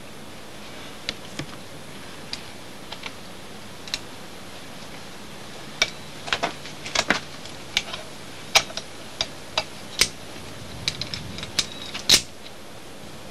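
Metal climbing hardware clinking: carabiners and a spring-loaded camming device (a friend) knocking together in scattered sharp clicks, sparse at first and thicker from about halfway in, as the placed friend is loaded to test that it holds.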